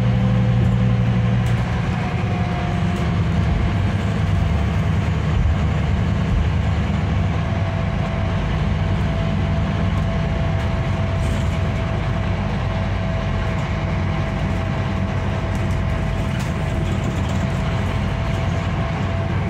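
Inside the cabin of a Scania K310IB coach under way: the rear-mounted diesel engine and road noise run steadily, the engine note easing a little about a second and a half in. A thin steady whine sits above the low hum.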